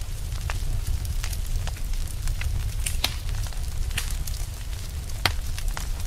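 Log fire crackling: irregular pops and snaps over a steady low rumble, with a sharper pop about three seconds in and the loudest one just past five seconds.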